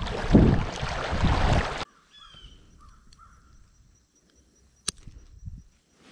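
Wind buffeting the microphone on open water, which cuts off abruptly after about two seconds to quiet. In the quiet a bird calls faintly a couple of times, and a single sharp click comes about five seconds in.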